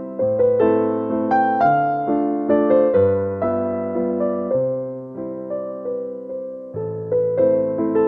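Background piano music: slow, gentle chords with a melody on top, each note struck and fading, the bass moving every second or two.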